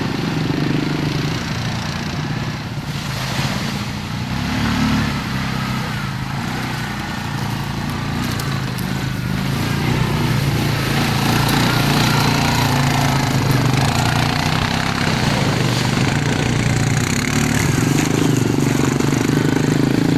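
ATV engine running under way, its pitch rising and falling with the throttle, getting louder in the second half.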